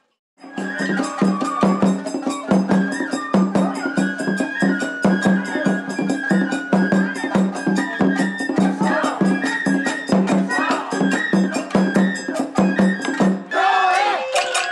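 Japanese festival hayashi music: a taiko drum beaten in a steady rhythm under a high flute melody, with shamisen and sharp bell or clapper strikes. It begins after a brief break, and about a second before the end it cuts abruptly to shamisen playing with singing.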